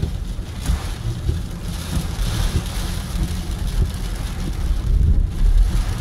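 Inside a car driving through heavy hurricane rain: rain beating on the car and tyres running through standing water on a flooded road, over a steady low rumble of the moving car.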